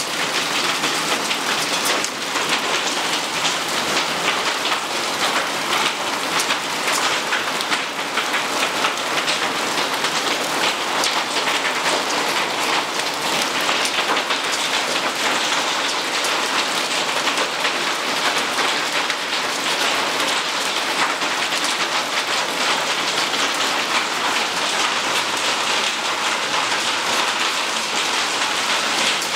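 Hail mixed with rain falling on clay roof tiles and a tiled floor: a dense, steady patter of many small hits that does not let up.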